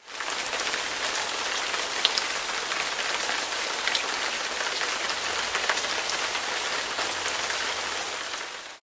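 Steady rain: an even hiss with scattered drop ticks, cutting off suddenly near the end.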